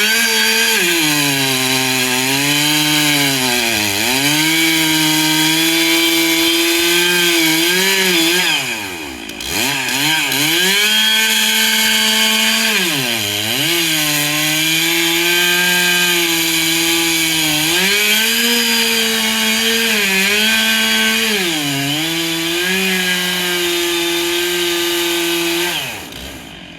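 Gas chainsaw at full throttle cutting through wood. The engine pitch sags again and again as the chain loads up in the cut, drops almost to idle about nine seconds in before revving back up, and falls away to idle near the end.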